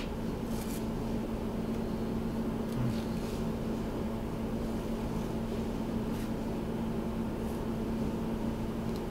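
A steady low hum fills a small room, with a few faint soft rustles and tears of a banana peel being pulled down.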